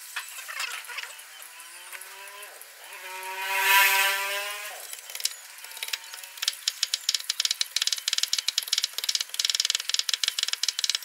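Knife whittling a bamboo stick: quick scraping strokes that click many times a second through the second half. Before that, a drawn-out pitched call with several overtones rises and holds for a couple of seconds.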